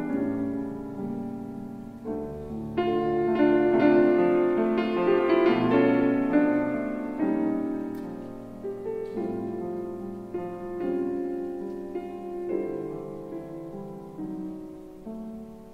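Slow, gentle solo piano music. It grows louder a few seconds in and then gradually softens toward the end.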